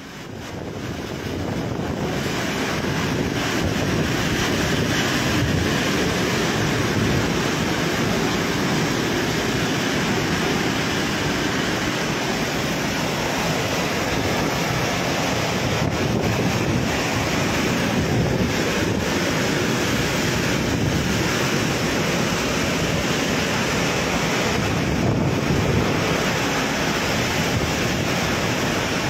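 Super typhoon wind and torrential rain: a steady, dense rush of wind and rain with wind buffeting the microphone, fading in over the first few seconds.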